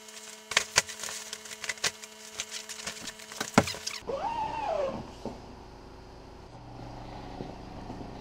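Rustling fabric and rapid clicks and snaps from a pop-up hunting ground blind being pulled out and unfolded, for about four seconds; it then cuts to quieter handling noise.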